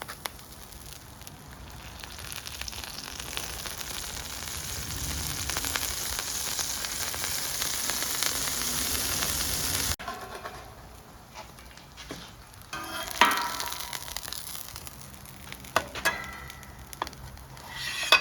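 Tortilla-topped beef smash burgers sizzling on a Camp Chef flattop griddle. The sizzle grows louder for about ten seconds, then cuts off suddenly. After that the sizzle is quieter, with scattered sharp clicks and scrapes.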